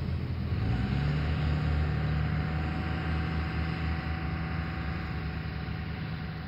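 A motor vehicle engine running steadily, a low rumble with a steady hum, swelling in the first second and then slowly easing off.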